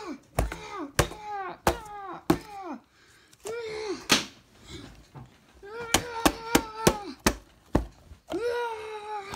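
A staged toy fight: repeated sharp whacks and knocks of toys striking each other, mixed with short high cries that fall in pitch. The knocks come about every half second at first, then in a quick cluster a little past the middle.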